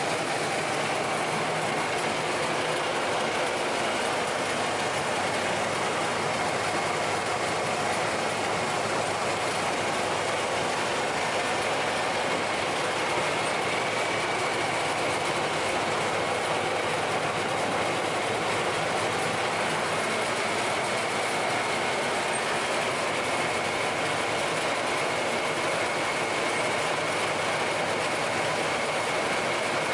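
SAFO DNAA 140 log-rounding machine running with no log in it: a steady mechanical noise from its motors and chain-driven feed rollers, with a faint steady high whine over it.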